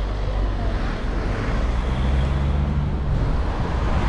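Car engine and tyre noise from a car driving slowly along a town street, with a low engine hum that strengthens about one and a half seconds in as the car picks up speed.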